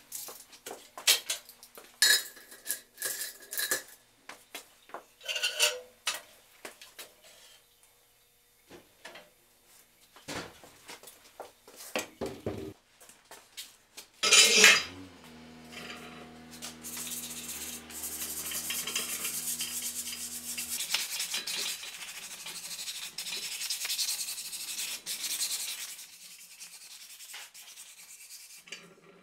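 Metal clicks and clanks as a steel clinch rim on a wooden wheel is handled and the locking clamps are worked, then one loud knock about halfway through. After that comes a steady hum for several seconds and a long stretch of sandpaper rubbing over the wooden spokes.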